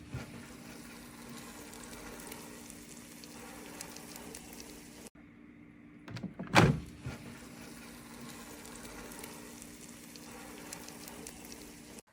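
Dreo ChefMaker combi air fryer running: a steady fan hum with a hiss over it, broken briefly about five seconds in, and one loud thump a little later.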